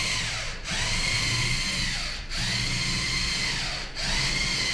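LEGO Mindstorms NXT servo motors whining as a tracked robot drives. The whine stops briefly about every one and a half to two seconds, dipping in pitch, then starts again, three times in a row. The robot is repeating its three-rotation move over and over after a single touch-sensor press, because the receiver program keeps reading the same old Bluetooth mailbox message.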